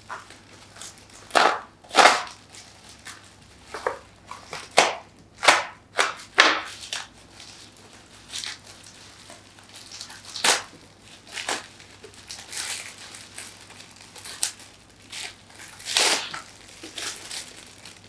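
Clear plastic packaging crinkling and rustling in short irregular bursts as hands tear and unwrap it, with a few sharp crackles louder than the rest.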